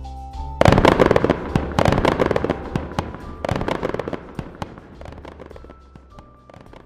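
Background music, then about half a second in a sudden burst of fireworks: a dense run of bangs and crackles that gradually thins out and fades over the following seconds, with the music carrying on underneath.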